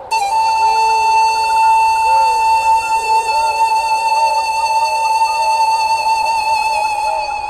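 Music: one long held high note with a slight waver starts suddenly and lasts about seven seconds, fading near the end, over a background of short, repeated rising-and-falling sweeps.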